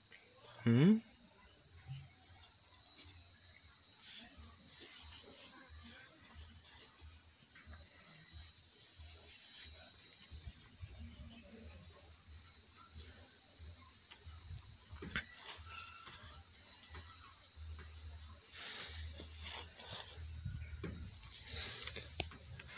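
Steady high-pitched trilling of insects, a cricket-like chorus that holds even throughout. About a second in there is a brief rising vocal sound, and a faint low rumble sits underneath.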